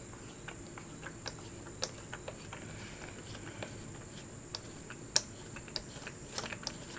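Light, irregular clicks and ticks as the threaded knob of a plastic Chain Monkey chain-tensioning tool is unscrewed by hand, loosening the tool on a motorcycle drive chain. One sharper click about five seconds in.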